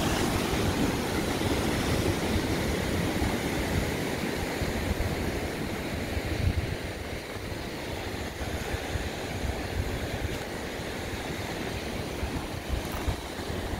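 Ocean surf breaking and washing over a flat rock shelf, a steady rush, with wind buffeting the microphone.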